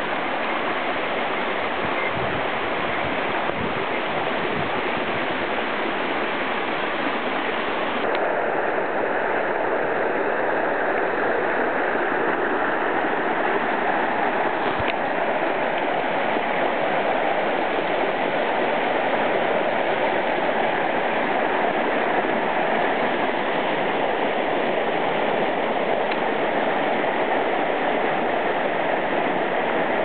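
Rain-swollen woodland stream rushing over rocks, a steady loud rush of water. The rush turns fuller a few seconds in, with a small click there and another midway.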